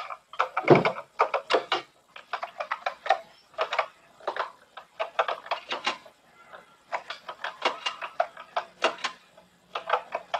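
Typing on a TRS-80 Model 1 keyboard: a run of irregular key clicks, with a heavier thump about a second in.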